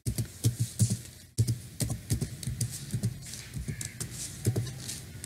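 Computer keyboard being typed on: a run of quick, irregular keystrokes.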